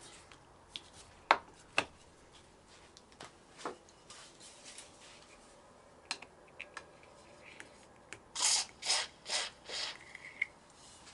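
Thin screwdriver clicking and scraping against a rubber handlebar grip and the bar as it is worked under the grip, then, near the end, a few short hisses of aerosol release oil sprayed through a straw under the grip to loosen its glue.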